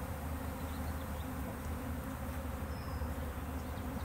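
Honey bees buzzing around an open hive, a steady, even hum.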